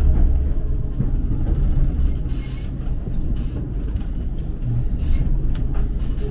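Passenger train moving slowly, heard from inside the carriage: a steady low rumble with a few sharp clacks as the wheels run over the points.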